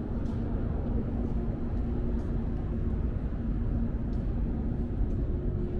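Montreal metro Azur train, a rubber-tyred subway train, running through the station: a steady rumble with a low electric hum, joined about two seconds in by a second, higher hum.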